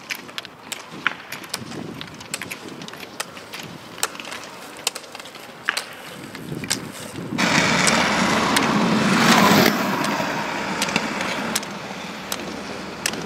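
Roller skis skating on asphalt with the sharp clicks of carbide pole tips striking the tarmac. About seven seconds in, a loud rushing of the ski wheels rolling over the tarmac sets in, then eases off after about ten seconds.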